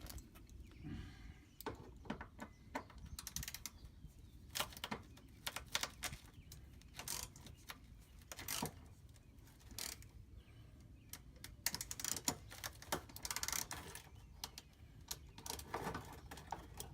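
Ratchet wrench clicking in irregular runs of short clicks, working rusty 10 mm fender bolts under the car.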